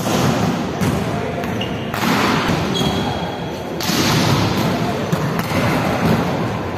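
Volleyballs being hit by hand and bouncing on the hard court floor: several sharp thuds, each trailing off in the echo of a large hall, over players' voices.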